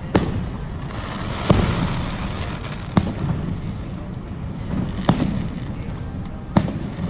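Fireworks bursting: five sharp booms about a second and a half apart, over a steady low rumble.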